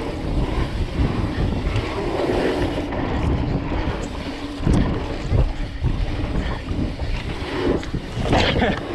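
Wind buffeting the microphone of a camera riding along on a mountain bike, with the rumble of the bike over the trail and a few sharp knocks.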